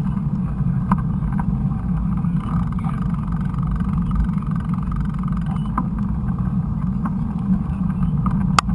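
Low, steady rumble of a helmet- or bike-mounted GoPro recording a mountain-bike ride on a dirt trail, with a few sharp knocks from the bike jolting over the ground, the loudest near the end.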